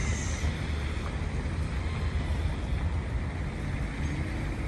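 Wind noise on the microphone over a steady low rumble of road traffic.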